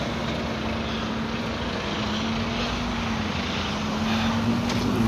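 A steady engine drone holding one low pitch, over a background of outdoor traffic noise.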